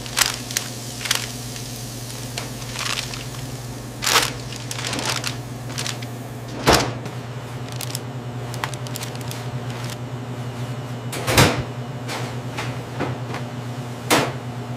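Food handling at a steel counter: paper wrapper rustling and several sharp knocks as items are set down on a plastic tray, the loudest about eleven seconds in, over a steady low hum of kitchen equipment.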